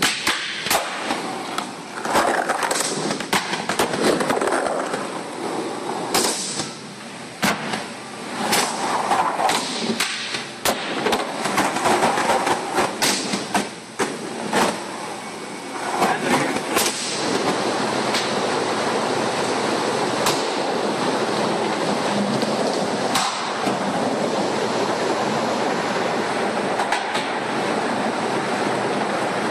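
Skateboard wheels rolling over the park's ramps, with many sharp clacks of the board hitting and landing through the first half. From about halfway the rolling runs on more steadily, with only a few clacks.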